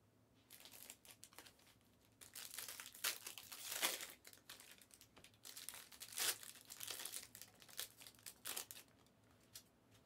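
Foil trading-card pack wrappers crinkling and tearing as they are handled and opened by hand, in irregular crackly bursts.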